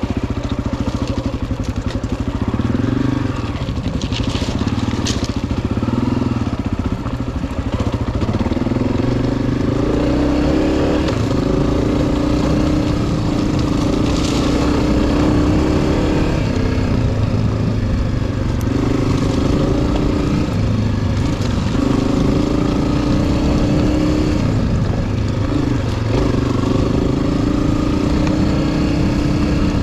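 Honda CRF250F single-cylinder four-stroke dirt bike engine running under way, its pitch stepping up and down with throttle and gear changes. A few brief clatters come through about four and fourteen seconds in.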